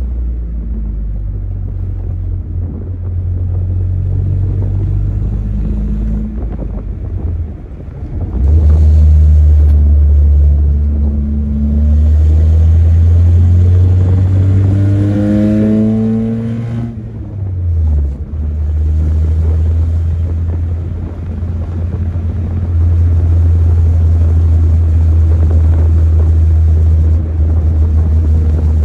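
Chevrolet S10 pickup's stock four-cylinder engine pulling hard through a manual gearbox: a loud, low, steady drone. It dips briefly and comes back louder about a quarter of the way in. About halfway through its pitch climbs as it revs out, then drops sharply at a gear change and settles back to a steady pull.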